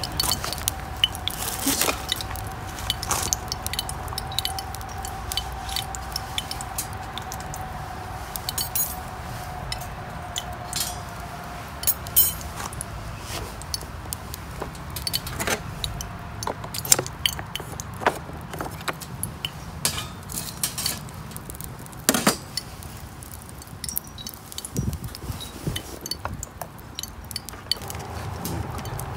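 Wood fire crackling inside a small folding metal wood stove, with irregular sharp snaps and pops.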